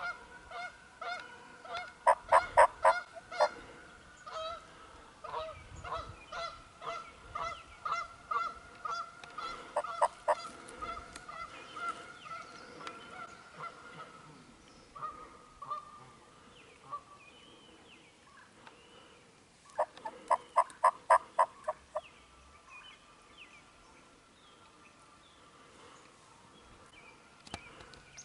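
Turkey yelps: a loud, fast run of about eight notes near the start and another about two-thirds of the way through, with softer notes repeating about twice a second in between.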